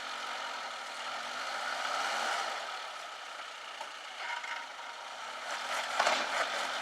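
Suzuki Jimny Sierra crawling over rocks off-road, its engine working slowly under load, with a few knocks and clatters near the end as it climbs over the stones.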